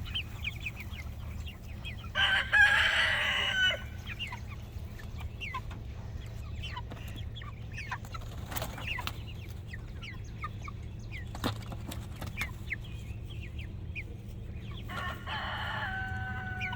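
A flock of Cornish Cross meat chickens peeping and clucking in short calls, with a rooster crowing loudly about two seconds in and again near the end.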